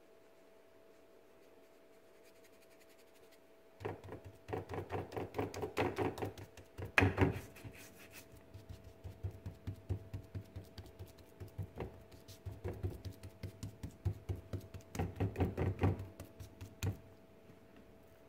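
A hand patting and rubbing dry seasoning into raw steaks on a plate: quick runs of soft slaps on the meat, starting about four seconds in, loudest about seven seconds in, and stopping shortly before the end.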